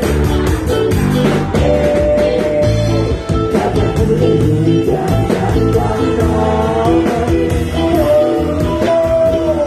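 Live band playing with a singer, long held and sliding sung notes over a steady beat and a heavy bass.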